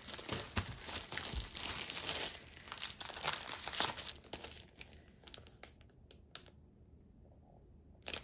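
Clear plastic wrapping crinkling and tearing as it is peeled off a canvas panel, with dense crackling for about four and a half seconds. It then thins to a few light crackles and a quiet spell, with a short crinkle right at the end.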